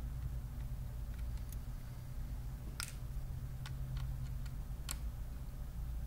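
Scattered small, sharp clicks of a precision screwdriver and fingers on a laptop's metal bottom case as tiny Phillips screws are taken out, the loudest about three and five seconds in, over a steady low hum.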